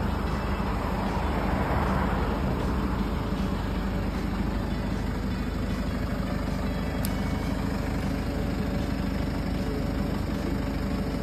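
Truck engine idling, a steady low hum, with a faint click about seven seconds in.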